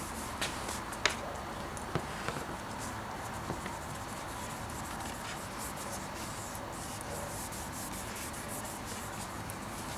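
Light hand work: faint rubbing or scraping, with a few sharp clicks and taps of a tool or part in the first few seconds.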